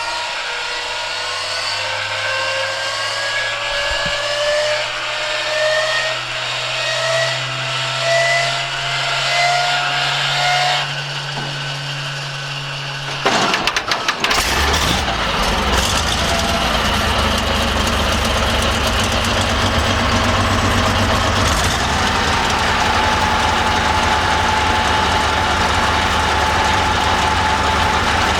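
Tiger I tank's hand-cranked inertia starter whining up steadily in pitch for about eleven seconds. About thirteen seconds in, the Maybach V12 petrol engine catches with a ragged burst and settles into a steady, louder run.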